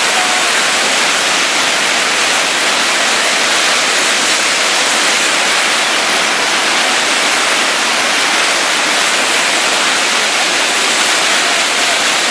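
Floodwater of a wadi in spate, rushing past in a steady, loud hiss that does not let up.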